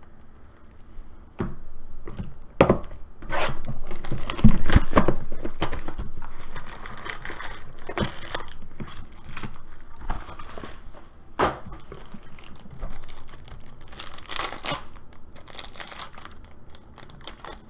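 Cardboard trading-card box being opened and foil card packs handled and torn open: irregular rustling, crinkling and tearing with sharp clicks, loudest about four to five seconds in.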